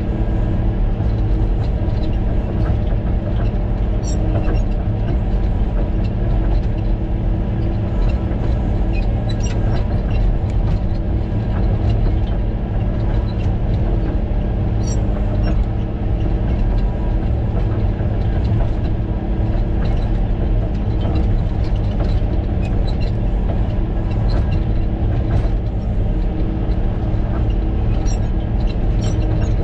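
Caterpillar motor grader's diesel engine running steadily under load, heard from inside the cab, with scattered faint clicks and rattles.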